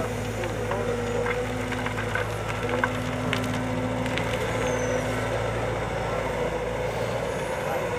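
Cat M313D wheeled excavator's diesel engine running steadily, with a few small knocks and scrapes from its work.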